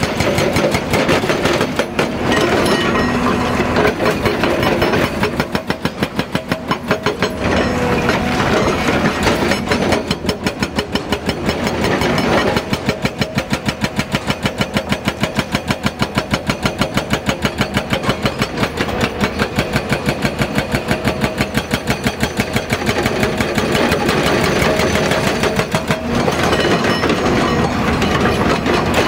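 Hydraulic rock breaker (Hyundai HDB230) on a crawler excavator hammering with rapid, evenly spaced blows, over the excavator's running diesel engine.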